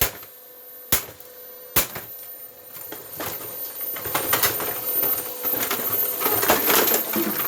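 Fantom canister vacuum's plastic body being smashed: three sharp blows about a second apart, then a busy run of rattling, clattering hits and loose pieces from about three seconds in.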